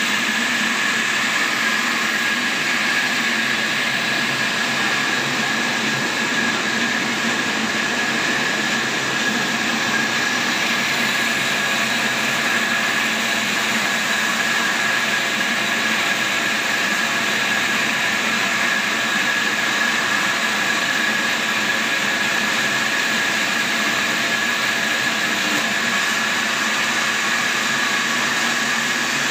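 Horizontal band sawmill running steadily as its blade cuts through a large log: an even mechanical rush with a steady high whine held throughout.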